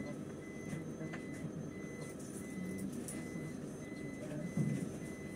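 An electronic beep repeating steadily, a little under twice a second, over the low rumble of the bus engine running while the bus stands in traffic. A short low bump sounds about four and a half seconds in.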